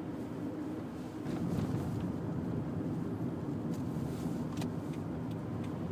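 Road and engine noise inside a moving car's cabin: a steady low rumble that grows a little louder about a second in, with a few faint clicks.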